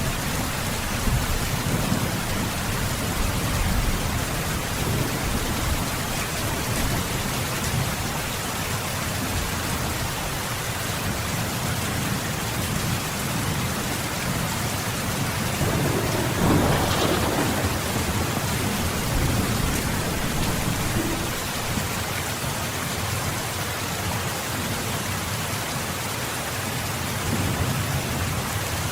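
Steady rain falling, with low rumbling thunder under it and a brief louder swell about two-thirds of the way through.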